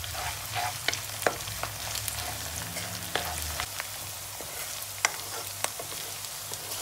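Chopped onions, green chillies and ginger-garlic paste sizzling in hot oil in a nonstick karahi, stirred with a wooden spoon that scrapes and knocks against the pan in frequent short clicks.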